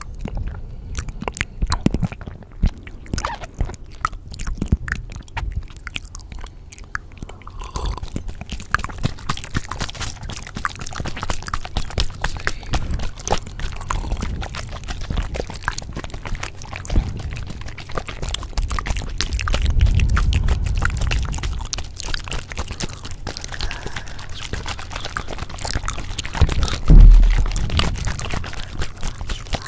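Layered ASMR sounds: dense, irregular crackling and crunching clicks over a low rumble, with a louder low thump near the end.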